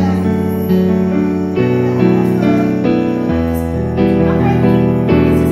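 Keyboard playing a piano-style tune over held chords, an instrumental passage with no singing.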